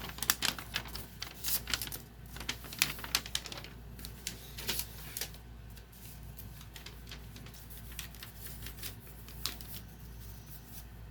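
Vigilante Z-700 smoke alarm being handled: a quick run of sharp clicks and rattles through the first five seconds or so, then a few more clicks near the end.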